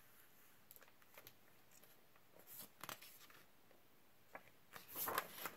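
Quiet handling of a hardcover picture book: a few faint, soft rustles and ticks, then a louder paper rustle near the end as a page is turned.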